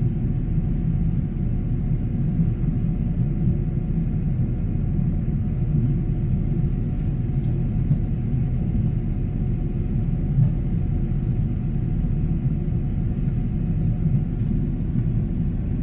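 Boeing 777-300's jet engines giving a steady, deep rumble at high power, without rising or falling.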